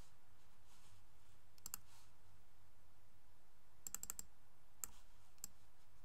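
Scattered sharp clicks of computer mouse buttons and keys: a pair about a second and a half in, a quick run of four or five around four seconds, then two single clicks near the end, over a faint steady room hum.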